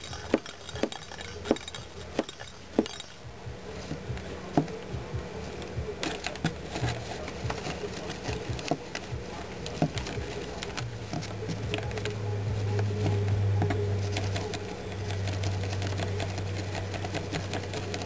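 Knocks and taps of a kitten batting hanging cardboard toilet-roll tubes and toys inside a cardboard play box, sharp and frequent in the first few seconds, then lighter and scattered. A low steady hum comes in past the middle.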